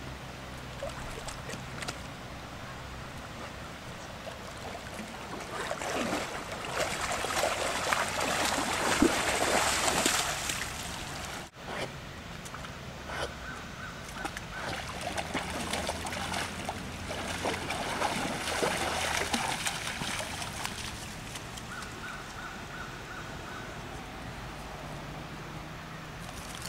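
Lake water splashing and sloshing as large Newfoundland dogs move through it, louder in two long stretches, with a faint low hum underneath.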